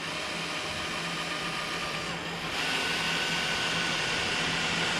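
Power drill running a step bit through the dash panel to open a 1/4 inch hole, with a steady motor whine that speeds up and gets louder about halfway through.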